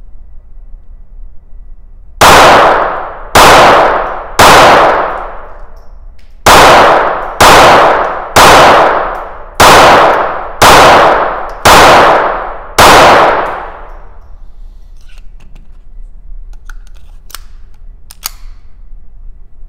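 Ten shots from a Hämmerli X-Esse .22 LR pistol, each ringing off for about a second in an indoor range. There are three shots, a pause of about two seconds, then seven more at about one a second. Near the end come a few light clicks as the pistol is handled.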